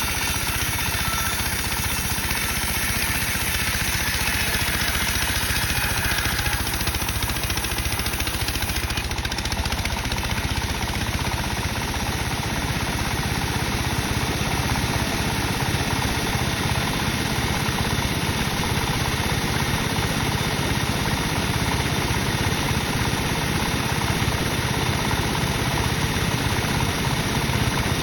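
Sawmill saw running steadily while cutting dry teak timber.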